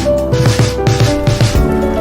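Background music: a melody of held notes over a steady beat with regular drum strikes.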